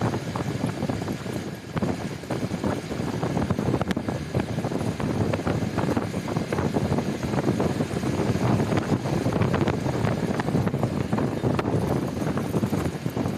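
Passenger train running: a steady rumble of the moving carriage with many short rattles and knocks.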